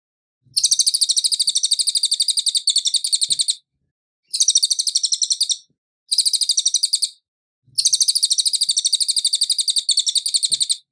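A cililin singing: rapid high trills of about nine evenly repeated notes a second, in four bursts separated by short pauses, the first and last about three seconds long and the middle two about a second each.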